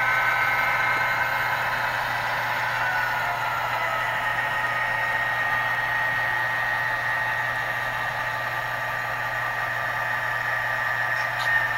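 HO scale model freight train rolling past on the layout: a steady whir of the wheels and motor, mixed with the diesel engine sound played by a sound-equipped model locomotive's onboard speaker. A brief click near the end.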